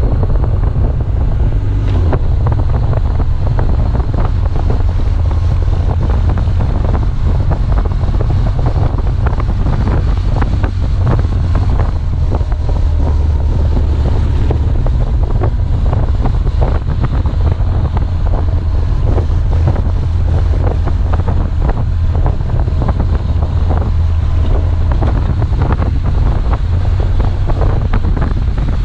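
Wind buffeting a helmet-mounted camera's microphone at riding speed, over the steady low rumble of a BMW R1200GS's flat-twin boxer engine.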